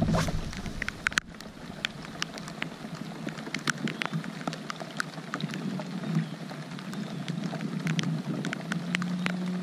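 Steady rain falling on the water and the kayak, with many sharp single drops striking close by at irregular intervals.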